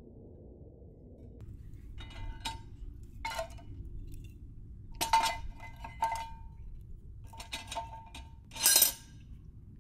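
Sticks of wood and a wood-shaving fire starter knocking and clattering against the thin sheet-steel of a rocket stove as it is loaded, a series of sharp clinks that make the steel ring. The loudest is a longer rattle near the end.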